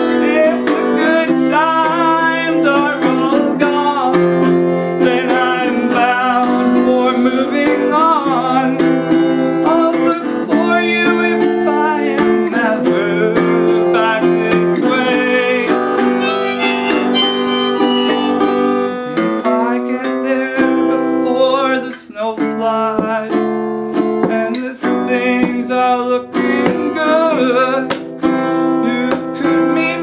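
Harmonica played in a neck rack over a strummed acoustic guitar, a folk tune with held, wavering harmonica notes over a steady strum.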